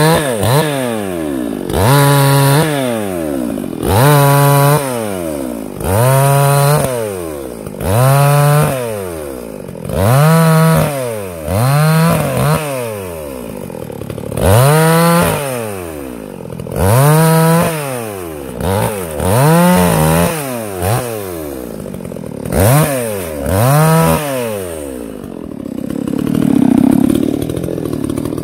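Two-stroke BAUMR-AG PRO BMR-CS57 chainsaw cutting thin birch stems, revved to full throttle about every two seconds, each burst held briefly then falling back toward idle. Near the end it settles to idle.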